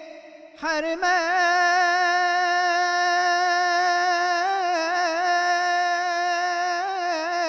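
A man singing alone in Egyptian Arabic with no instrument: after a brief gap about half a second in, he sweeps up into one long high held note with a slight waver, adding small turns near the end.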